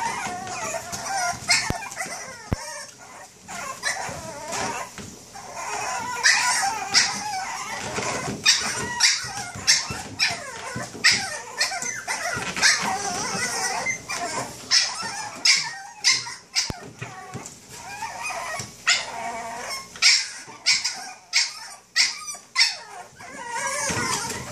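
A litter of Boston terrier puppies yipping and barking, many short high yips in quick, irregular runs.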